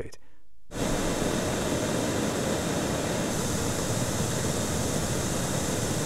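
Pink noise test signal recorded through a DJI Mic 2 transmitter's built-in microphone: a steady, even hiss that starts about a second in. About halfway the top end changes slightly, where the recording made before the firmware update is spliced to the one made after it.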